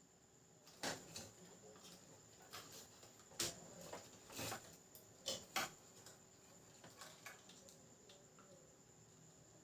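Faint, scattered clicks and taps with soft rustling, the sharpest of them between about one and six seconds in: hands handling a flat ribbon head cable and plastic parts while fitting the cable to an Epson L380 printer's print head.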